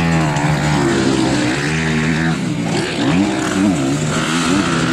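Motocross motorcycle engines revving, the pitch rising and falling repeatedly as the riders work the throttle on a dirt track.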